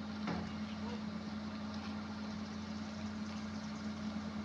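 Komatsu hydraulic excavator's diesel engine idling steadily with the boom and bucket at rest. One short knock sounds just after the start.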